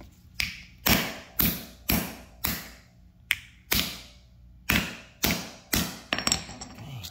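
A hammer striking the aluminum body of a Wyze smartwatch on a concrete floor: about a dozen sharp knocks, roughly two a second, with a short break midway.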